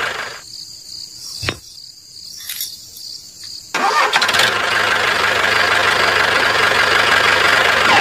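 Tractor engine running, cutting out for about three seconds with one click in the gap, then starting again and running steadily.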